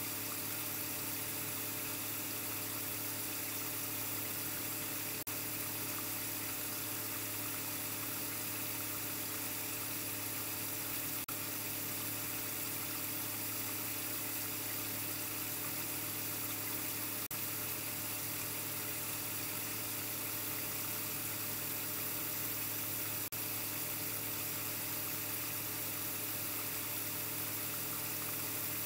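Steady hiss with a low, even hum, and a faint click about every six seconds.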